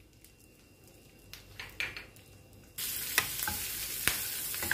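Sliced green chillies, lemon slices and ginger sizzling in hot butter in a small non-stick pan, stirred with a wooden spatula that clicks against the pan. The first part is nearly quiet with a few faint taps; the loud, even sizzle comes in suddenly a little over halfway.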